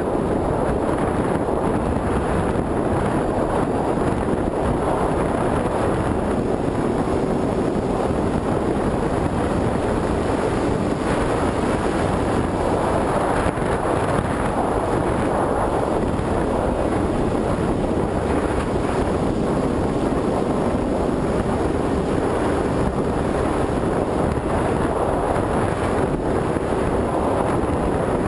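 Wind rushing over the microphone of a GoPro carried on a flying FPV Raptor model plane: a steady, rough noise, with a faint steady hum underneath in the later part.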